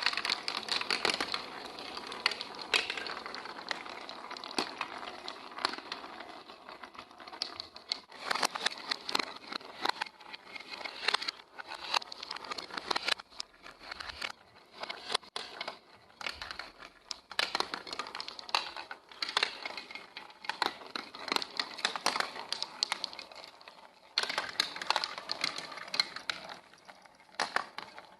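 Marbles rolling and clattering down a plastic building-block marble run: a dense, uneven stream of clicks and rattles that thins out for a few seconds about halfway and picks up again.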